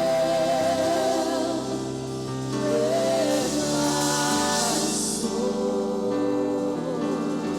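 Gospel song: singing with long held notes that waver in vibrato, over steady instrumental backing.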